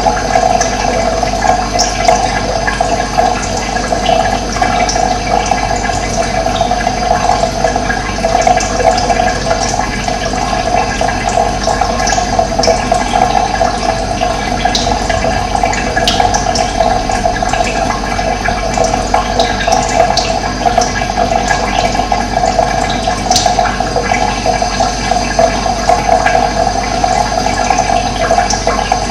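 Steady rush of running water, with brief high bird chirps now and then over it.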